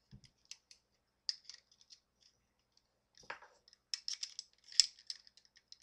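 Small metal clicks and ticks from the parts of a Harrington & Richardson Self-Loading .32 pistol being fitted back together, slide onto frame. There is a short scrape about three seconds in, and the sharpest click comes near the end.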